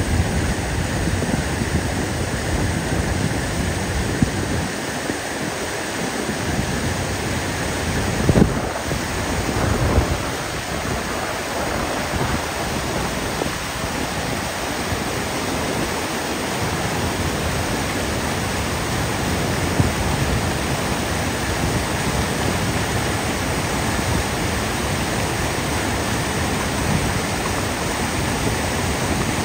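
Waterfall in heavy snowmelt flow, white water pouring over granite: a steady, full rushing noise. A couple of brief low thumps come about eight and ten seconds in.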